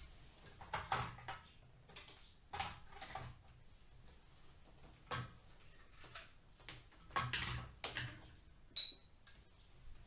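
Scattered light clicks, knocks and rustles of hands handling fire-alarm devices and their wiring on the floor, with one brief high beep near the end.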